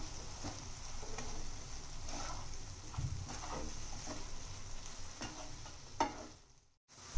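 Spatula stirring and scraping mushrooms and spice masala around a non-stick frying pan over a light sizzle. A sharper knock comes about six seconds in, and the sound cuts out briefly near the end.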